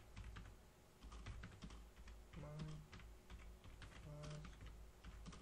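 Faint computer keyboard typing: a quick, uneven run of key clicks as a line of text is typed. Twice, about halfway through and again a little later, a short low hum of a man's voice.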